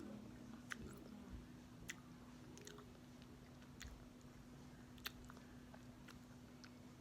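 Faint chewing of a soft gummy candy, with scattered wet mouth clicks and smacks about once a second over a steady low hum.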